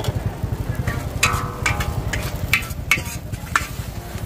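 Metal spatula scraping and clanking against a large steel wok as Pad Thai noodles are stir-fried. Several sharp strikes start about a second in, the first with a short metallic ring, over a steady low rumble.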